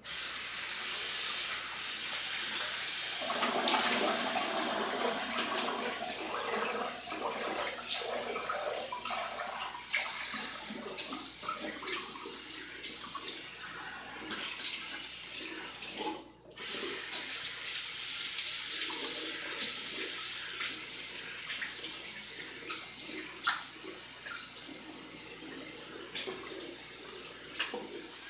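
Bathroom sink tap running, with splashing as he rinses off after shaving. The flow breaks off briefly about sixteen seconds in, then runs on.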